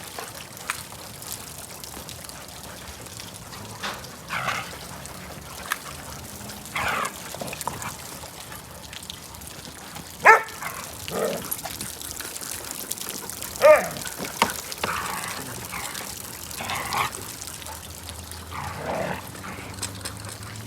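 Dogs barking and yipping in short separate calls every couple of seconds, the two sharpest about ten and fourteen seconds in.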